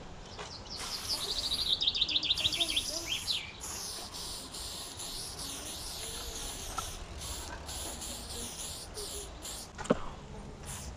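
Aerosol spray-paint can hissing in bursts that start and stop abruptly. A small bird trills briefly, a quick run of repeated notes about two seconds in, and there is one sharp click near the end.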